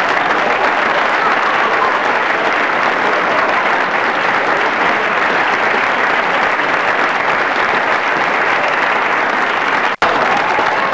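A crowd applauding steadily. It drops out for an instant near the end, then resumes at the same level.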